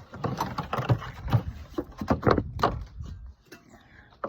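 Handling noise: a run of irregular knocks, bumps and clatter as the camera is set down and objects are moved about. It dies down near the end.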